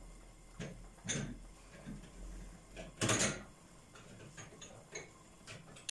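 Scattered knocks and clicks of kitchen items being handled off to the side, with one louder clatter about three seconds in and a few light ticks near the end.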